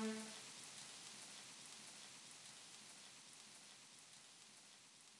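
Faint recorded rain, a steady hiss with small drop ticks, slowly fading out. A held musical note stops just after the start.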